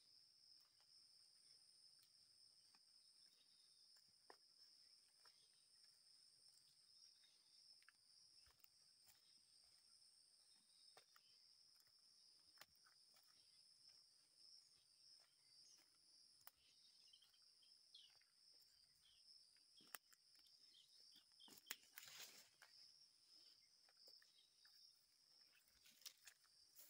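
Faint, steady, high-pitched insect chorus droning in the woods, with scattered soft footsteps and rustling from walking a leafy dirt path. A louder brushing rustle through vegetation comes about 22 seconds in.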